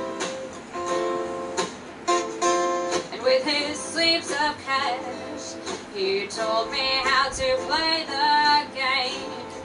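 A small live band plays: acoustic guitars strummed, with a woman's lead vocal coming in about three seconds in. It is heard through a television's speaker.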